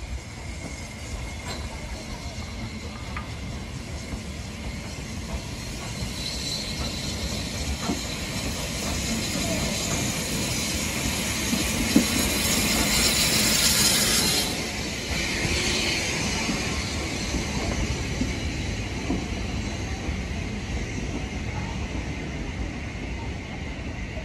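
A train passing. The noise builds as it approaches and is loudest a little past halfway, with one sharp knock. It drops off suddenly as the locomotive goes by, and the steadier sound of the coaches rolling past continues.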